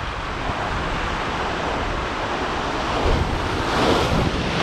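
Ocean swell surging against shoreline granite rocks. A wave washes up and foams over the ledge about three to four seconds in, with wind rumbling on the microphone throughout.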